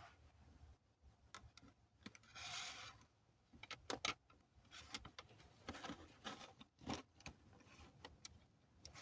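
Faint scattered clicks, taps and a brief rustle from hands handling small laptop parts and tools during reassembly, with a cluster of sharper clicks in the middle.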